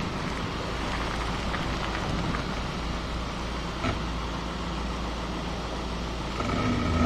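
Steady road noise from a moving car, and near the end a short, pitched creak of the brake pads.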